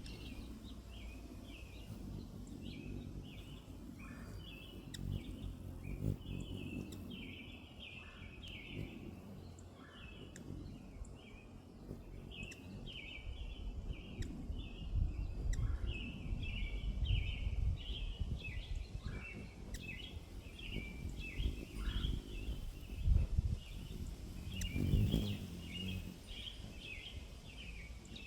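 Birds chirping in quick, repeated short notes throughout, over a low rumble that swells a few times.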